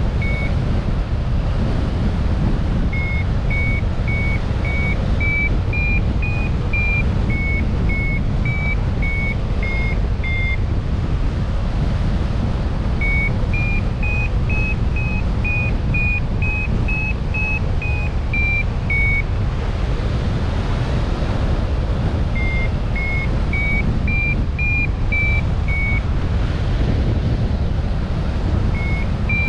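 A small bell ringing in short, clear notes about twice a second, in runs that stop and start again, like a bell swinging with each step. Under it runs a loud, steady low rumble.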